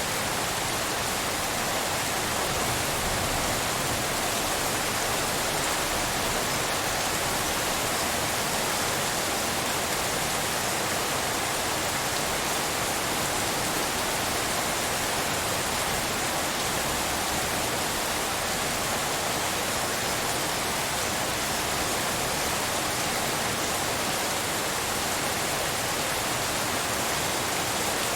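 Steady rainfall hiss, a dense, even wash without separate drops standing out.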